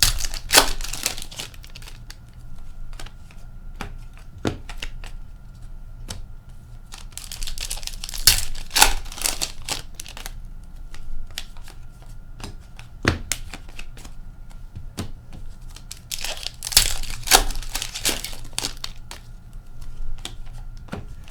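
Trading card packaging being torn open and crinkled by hand, in three bouts of tearing with small clicks and rustles between.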